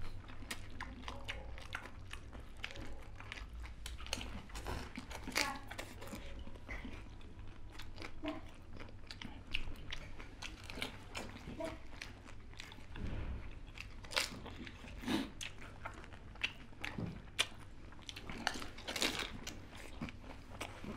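Two people eating pani puri, biting into crisp hollow puri shells filled with green spiced water and chewing them, with many short, irregular crunches.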